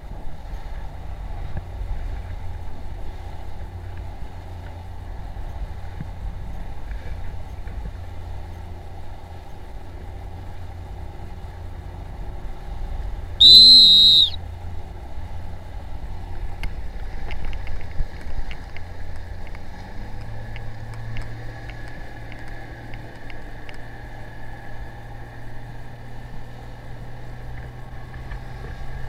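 Outboard motor of an inflatable coach boat running steadily under way. About halfway through comes a single short, high-pitched blast, the loudest sound, and from about two-thirds of the way in the engine settles into a steadier, more even note.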